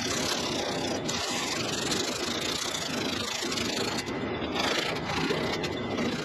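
Coarse sandpaper disc rubbed by hand in short back-and-forth strokes over the primer-coated steel trunk lid, a steady scratchy scraping that dips briefly about four seconds in; the surface is being roughed up so body filler will grip.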